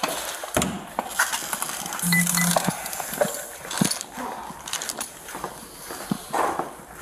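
Footsteps on a hard floor with the knocking and rustle of duty gear against a body-worn camera as an officer walks, with a short beep about two seconds in.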